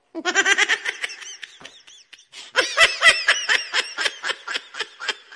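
A person laughing in quick, high-pitched 'ha-ha' pulses, in two runs with a short break about two seconds in.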